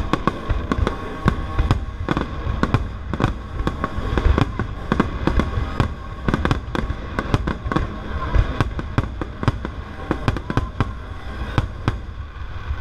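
Aerial firework shells bursting in a dense, irregular barrage, several sharp bangs a second, with no let-up.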